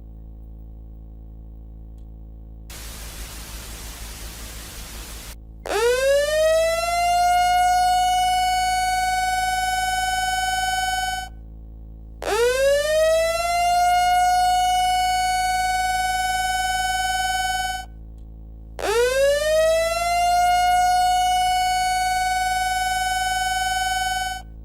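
A burst of static hiss lasting about three seconds, then three long electronic alert tones, each sweeping up in pitch and then holding one steady note for about five seconds, with short gaps between them. This is the attention signal that opens an emergency alert broadcast. A faint steady hum lies underneath.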